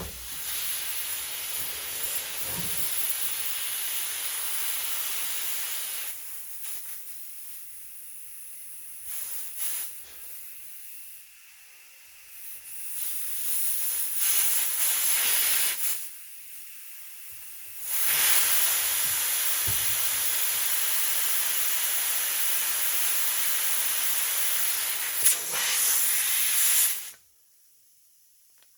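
Compressed air hissing through a locking air chuck into a Humvee tire's valve stem, with the valve core out. The hiss fades and comes back several times as the chuck fails to grip the stem well, then runs strongly before cutting off near the end.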